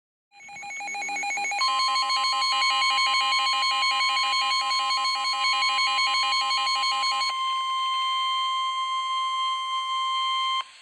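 A weather radio's alert goes off. A pulsing electronic alarm fades in, and about a second and a half in the steady 1050 Hz NOAA Weather Radio warning alarm tone joins it. The pulsing stops about seven seconds in, and the steady tone holds until it cuts off abruptly near the end. The tone signals that a new warning broadcast follows.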